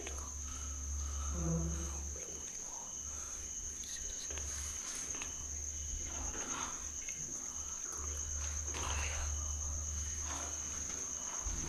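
A cricket's continuous high-pitched trill, with a low rumble that comes and goes underneath and faint murmured voices now and then.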